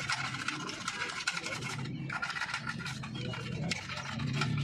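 Bristle brush scrubbing an engine's tappet cover in a pan of petrol or thinner: a rapid, steady scratching.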